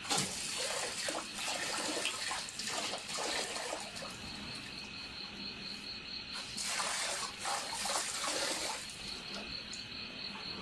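Insects trilling steadily in fast, even pulses, over a constant hiss with scattered soft knocks.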